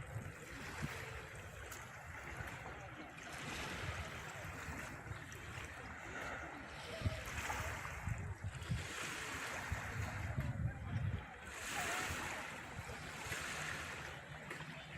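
Sea waves washing onto a beach, the surf swelling and fading every few seconds, with low rumbles of wind on the microphone.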